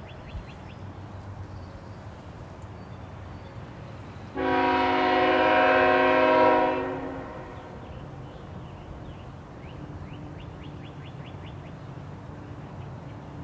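Air horn of an approaching CN diesel freight locomotive sounding one long blast of about three seconds, a chord of several notes, starting about four seconds in, over the steady low rumble of the oncoming train.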